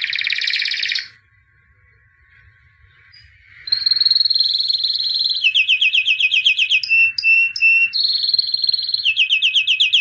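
White canary singing: a short burst of song, a pause of about two and a half seconds, then a long unbroken run of song from about four seconds in, mixing held high notes with fast rolling trills and a few separate short notes.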